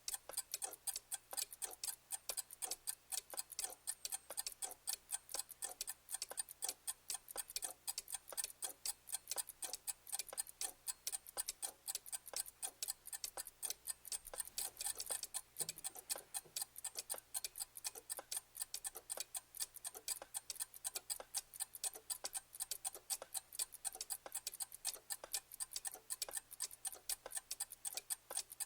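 Clock ticking steadily, even ticks several times a second.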